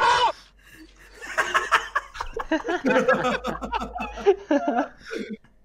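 A shouted voice cuts off right at the start. After a short lull, people laugh in short choppy bursts of giggling and chuckling from about a second and a half in.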